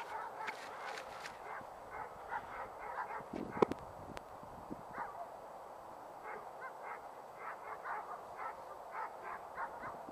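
Faint, repeated short animal calls, coming in scattered runs. A single sharp crack sounds about three and a half seconds in.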